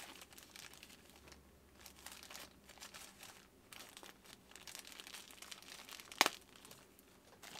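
Packaging crinkling as it is handled by hand, in short scattered rustles, with one sharp tap about six seconds in.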